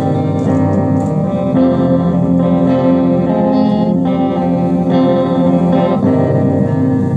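A guitar playing, its chords changing every second or so.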